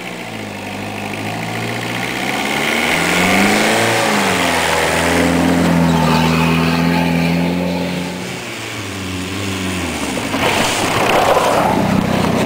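Peugeot 306 1.9 turbo-diesel engine revving up under load, held at high revs for a few seconds, then easing off about eight seconds in.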